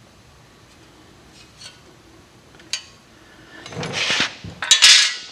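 Metal tools and engine parts being handled and set down: a single click, then two bursts of metallic clattering near the end.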